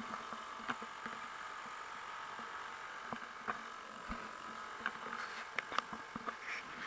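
Johnson 2 hp Sea-Horse two-stroke outboard running at a steady cruising speed, a thin buzzing hum. Scattered sharp clicks and knocks come over it, most of them in the second half.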